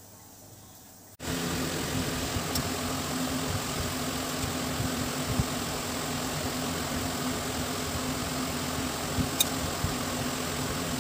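Steady hum of a small electric motor running, starting abruptly about a second in, with a few faint clicks.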